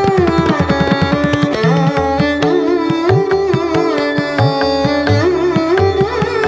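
Upbeat Indian dance music playing loudly: a pitched melody line over a steady, quick drum beat.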